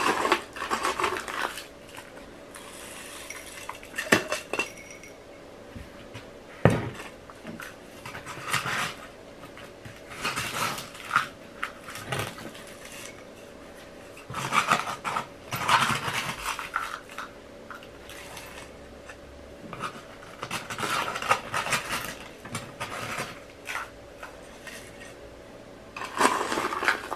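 Gritty mineral potting mix (DIY pon mix) being scooped and poured into a small jar around a plant's roots. It comes as a series of short rattling pours with a few sharp clicks, separated by quieter pauses.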